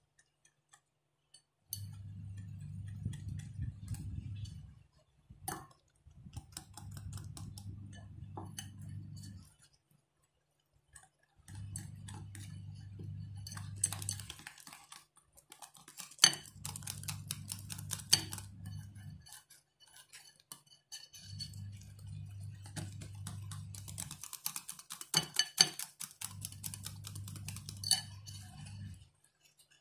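A whisk beating a thick egg and gram-flour batter in a glass bowl, clinking and ticking against the glass. A low steady hum comes in stretches of about three seconds, stopping and starting six times.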